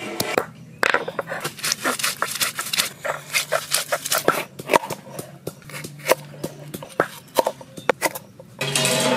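Hand-held stone roller crushing and grinding soaked ingredients on a flat grinding stone (sil-nora): rapid knocks and scrapes of stone on stone. Near the end, a knife cuts green bell pepper on a wooden board.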